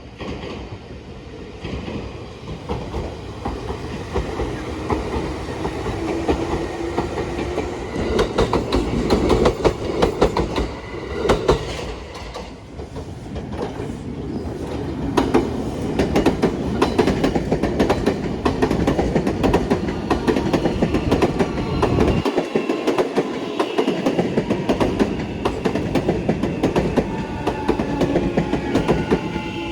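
Nankai electric train running past on the line, its wheels clicking rapidly and continuously over the rail joints.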